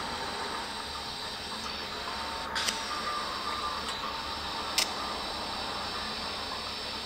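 Low-amperage TIG welding arc on thin 0.5 mm wrought iron, a steady hiss, with two sharp clicks about two and a half and five seconds in.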